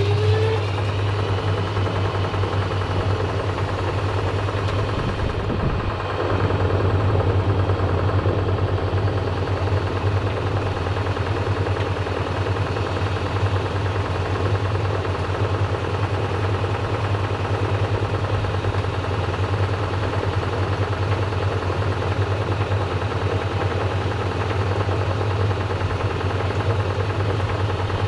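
Washing machine running with balloons and cubes in its drum: a steady deep hum under dense, rapid knocking and rattling from the load.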